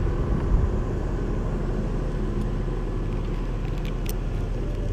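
Crane's diesel engine running steadily, a low even drone.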